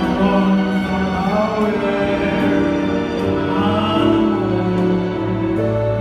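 Live electronic keyboard music, slow, with sustained chords that change every second or so, played through the PA system.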